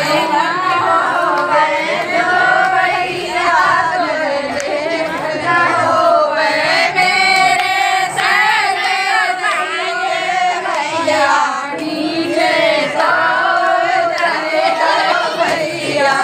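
Group of women singing a bhat geet, a North Indian wedding folk song, together in chorus.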